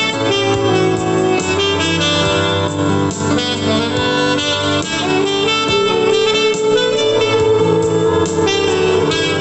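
Instrumental break of a Christian love song: a gliding lead melody over sustained keyboard accompaniment, with no singing.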